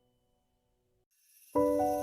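Near silence as one piece of background music fades out. About one and a half seconds in, a new passage of soft piano-like notes begins.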